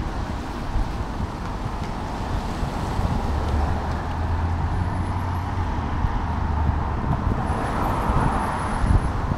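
Street traffic: motor vehicles passing, with a steady low engine hum from about three to seven seconds in and another vehicle swelling past near the end. Wind rumbles on the microphone underneath.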